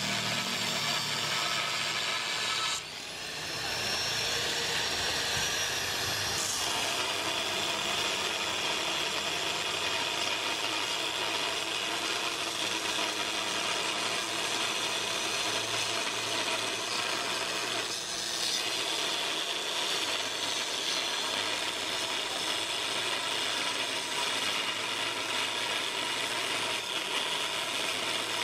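Angle grinder with a thin cut-off disc cutting through rusty steel plate: a steady, high grinding whine. About three seconds in the disc briefly comes off the cut, then bites again.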